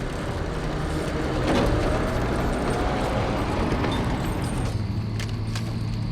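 Motor vehicle passing: a broad rush of engine and road noise that swells about a second and a half in, then settles into a low steady hum with a few clicks.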